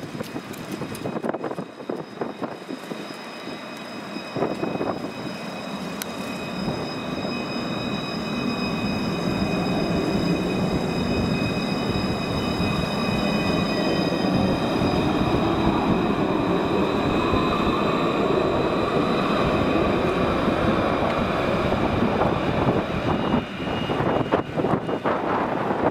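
Luas Alstom Citadis 402 tram running past close by: a rumble of wheels on rail under a whine of several steady high tones from its traction equipment. It grows louder over the first ten seconds or so and then holds.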